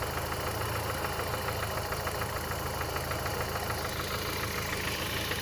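Car engine idling with a fast, even ticking clatter, which the owner traces by ear to the starter.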